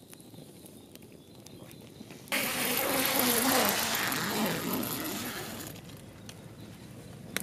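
Campfire of dry branches crackling with scattered sharp pops. About two seconds in it turns much louder, a steady hiss of flames with the crackle, and eases back near the end.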